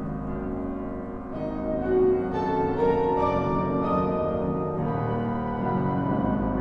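Instrumental music on a keyboard instrument, slow held notes moving from chord to chord.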